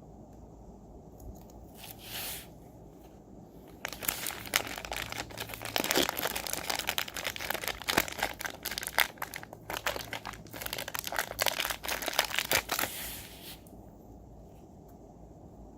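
Toy packaging crinkled and torn open by hand: a short rustle, then about ten seconds of dense crackling with a brief pause partway through.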